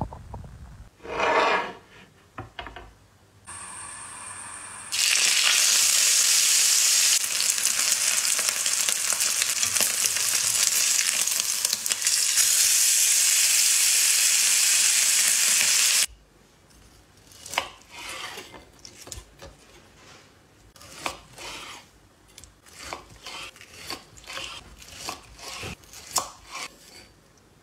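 A few brief handling noises, then a steak sizzling loudly in a cast-iron skillet for about ten seconds before it stops abruptly. After that comes a long run of short, quick strokes as a knife slices through the cooked steak on a wooden board.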